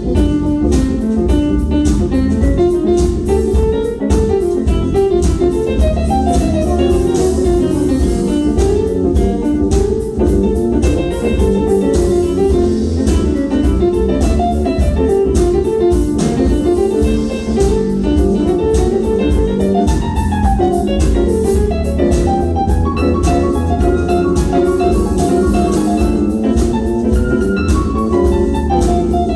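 Instrumental music: a drum kit keeps a steady beat under a busy, jazzy melodic line.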